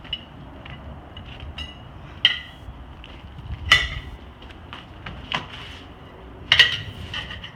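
Metal clanks and clicks with a short ringing tail as metal tools strike a wheel rim while a tire is worked onto it by hand. Three clanks stand out: about two seconds in, near the middle, and near the end.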